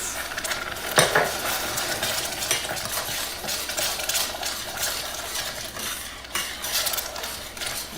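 Milk being added to a saucepan of boiling butter and brown sugar and stirred in: a spoon clinking and scraping against the pan in many quick clicks over a bubbling hiss, with a sharp, loud sound about a second in.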